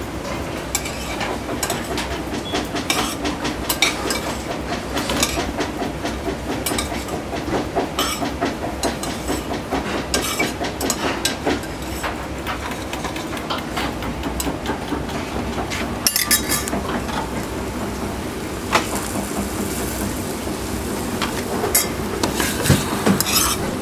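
Kitchen clatter: metal utensils and pans clinking and knocking, many short sharp clinks over a steady background noise.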